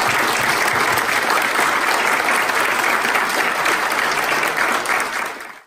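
Audience applauding steadily, easing a little near the end and then cutting off suddenly.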